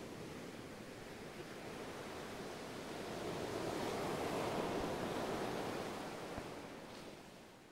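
Ocean waves and surf washing, a steady rush that swells to its loudest about halfway through and fades away near the end.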